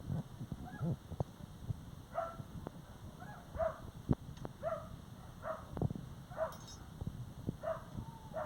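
A dog whimpering in a series of short, high yelps, about eight of them at uneven intervals, among sharp clicks and knocks.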